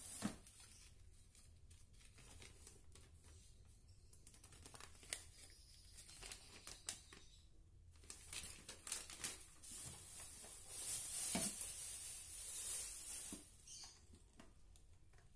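Paper and thin plastic wrap rustling and crinkling as a folded instruction sheet is unwrapped and opened out by hand, with scattered small clicks and knocks. The rustling grows louder about eight seconds in and dies down shortly before the end.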